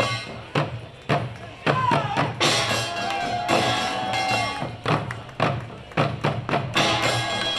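Korean pungmul drumming: janggu hourglass drums and buk barrel drums struck together in an ensemble rhythm, with sharp accented strokes. Over the drums, a high pitched note bends about two seconds in and then holds steady for a second or so.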